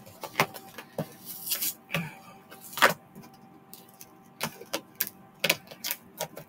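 A package being opened and handled by hand: irregular crinkles and rustles, the loudest about three seconds in, over a faint steady hum.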